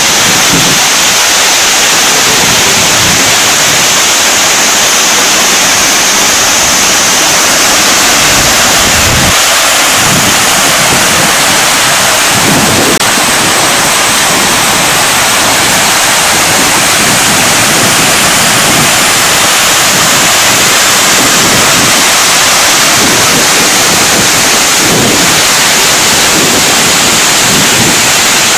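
Steady, loud rushing of a waterfall and the water cascading over rocks below it.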